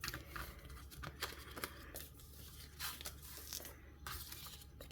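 Loose scrapbook paper and cardstock being lifted and slid off a layout, paper rustling and scraping in short, faint rustles.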